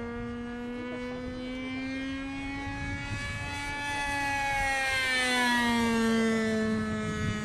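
RC model Messerschmitt Me 163 Komet flying past with its motor and propeller running steadily. The hum grows louder as the plane comes near, peaks about six seconds in, and drops in pitch as it passes.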